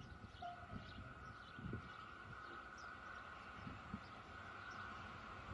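Distant Renfe series 269 electric locomotive approaching with its freight train: a faint steady whine, growing slowly louder. Small birds chirp briefly and wind thumps on the microphone.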